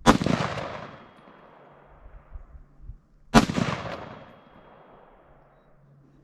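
Two rifle shots about three and a half seconds apart, each a sharp crack followed by a long echo that dies away over a second or two.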